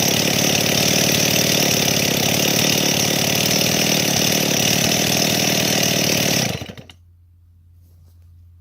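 Stihl 024 AV two-stroke chainsaw running at a steady speed, then switched off about six and a half seconds in, the engine dying away within half a second.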